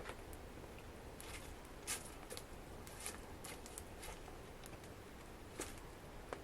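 Wood fire crackling in a fireplace: irregular sharp pops and snaps over a low steady background, the loudest about two seconds in.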